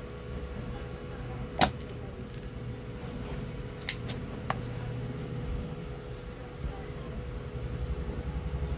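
Bench work while desoldering a power-supply regulator IC from a TV board: a steady low hum of bench equipment, one sharp click about a second and a half in, and three lighter clicks around four seconds in.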